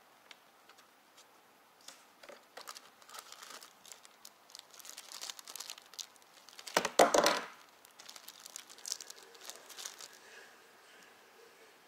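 A plastic bag and paper wrapping crinkle and rustle as they are handled and pulled off a clear plastic part, in irregular crackles. There is one much louder burst a little past the middle.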